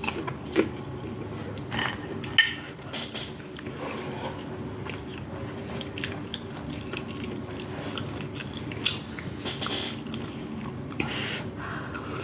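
A person biting and chewing food close to the microphone, with irregular short crunches and mouth clicks.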